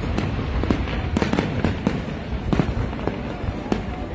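Fireworks display: aerial shells bursting in quick, irregular succession, about two or three bangs a second, over a continuous low rumble and crackle.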